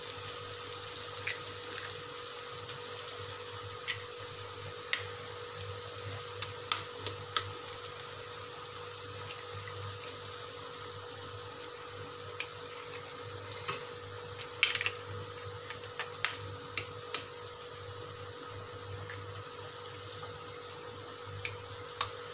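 Cauliflower masala frying in an aluminium kadai, a steady quiet sizzle over a faint hum. Scattered sharp taps and clicks against the pan break it, most of them bunched about two-thirds of the way through.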